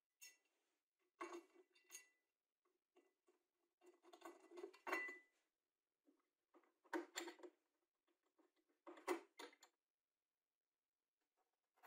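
Faint metal clinks and rattles as an aluminium bracket is handled and screwed onto an electric planer's housing with a screwdriver, in several short bursts with quiet between them.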